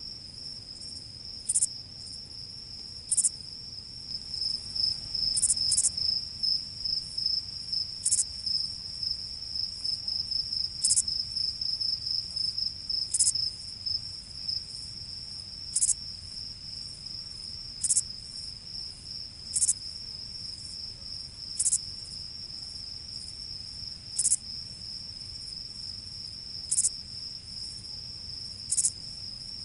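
Crickets trilling: a steady high-pitched chirring that pulses quickly for a stretch near the middle, with a short sharp higher chirp repeating about every two seconds.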